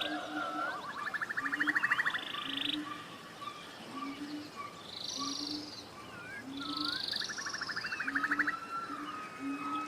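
Forest chorus of several birds calling at once: a low note repeating roughly once a second under fast buzzy trills and high chirps and whistles.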